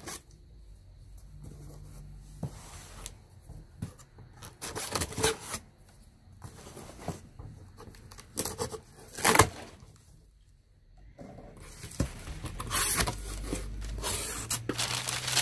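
A knife slitting packing tape on a cardboard shipping box, with the tape torn and peeled away in short irregular bursts, then the cardboard flaps pulled open with scraping and rustling near the end.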